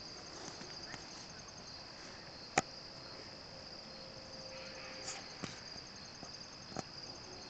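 Crickets chirping, a steady high trill throughout, with a few short sharp clicks, the loudest about two and a half seconds in.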